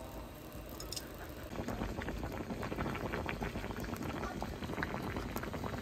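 Water boiling hard in a pot, a dense bubbling crackle that grows louder about a second and a half in.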